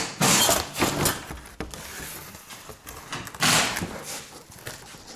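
Power drill-driver running in short bursts, driving the screws that fix a chimney bracket to the wall, with clicks and knocks of handling between the bursts.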